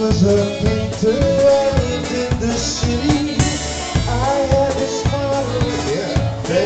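Live polka band playing: a concertina and a drum kit on a steady polka beat, with a man singing the melody.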